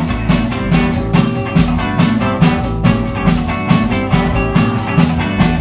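Live garage rock band playing an instrumental passage: electric guitar and drum kit with a steady, driving beat.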